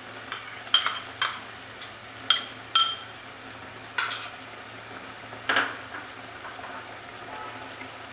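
A spoon clinking against metal cookware about six times in the first six seconds, each strike ringing briefly, as garlic paste is knocked off into the pan.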